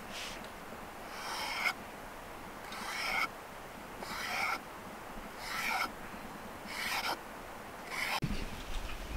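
Kitchen knife slicing through a stack of ham slices on a wooden cutting board. Six drawn strokes about a second apart, each a short rasp that swells and then ends abruptly.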